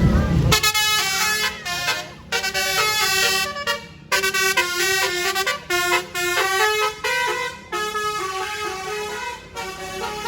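Basuri telolet multi-tone air horn playing a quick melody of stepped horn notes, broken into short phrases. A loud low rumble cuts off about half a second in, as the horn starts.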